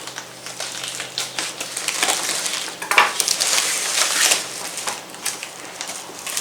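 Brown paper packaging crinkling and rustling as it is unwrapped by hand, with a sharper crackle about three seconds in.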